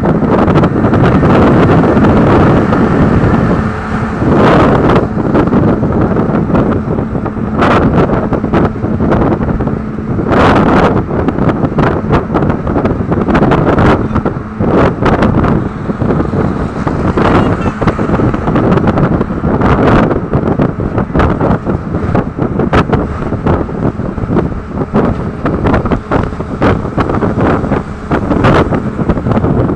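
Wind buffeting the phone's microphone from a vehicle travelling at highway speed, over steady road and engine noise, with gusty surges that come and go.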